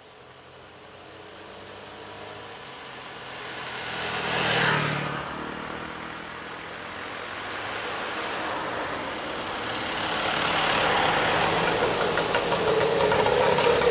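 Road vehicles driving slowly past close by: engines running and tyres on the road. One passes closest about five seconds in, and the engine noise builds again and stays loud from about ten seconds on.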